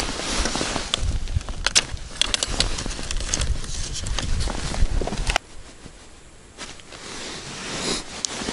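Rustling and scattered clicks of a person handling a plastic tackle box on the ice, over a low rumble that stops suddenly about five seconds in, after which it is quieter.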